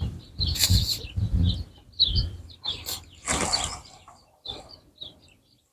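Irregular knocks, clicks and rustling as wooden chair parts are handled and worked on by hand.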